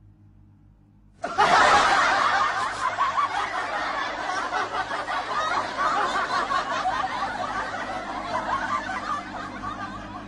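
Laughter from a group of people bursts in suddenly about a second in and carries on, slowly fading.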